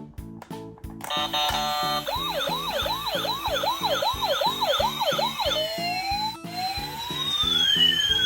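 Electronic ambulance siren, of the kind a toy ambulance makes. About a second in, a brief run of stepped tones gives way to a fast yelp of quick rising sweeps, about two or three a second, which changes after a few seconds into a slow wail that rises and falls. Background music with a steady beat plays underneath.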